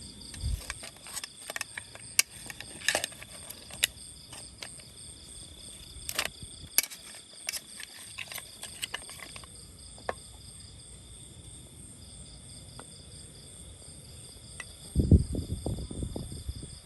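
Crickets chirping steadily. Scattered light clicks and taps come over the first ten seconds, and a louder low thudding rumble comes near the end.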